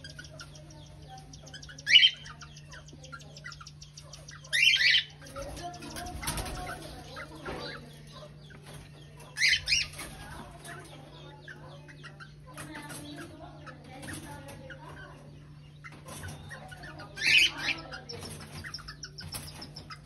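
Cockatiels in an aviary giving four loud, short, shrill calls a few seconds apart, over softer chirping and some wing flapping. A faint steady hum sits underneath.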